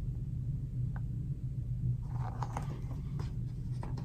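Steady low hum, with soft rustling and a few light clicks from about two seconds in as a hardcover picture book is handled and lowered.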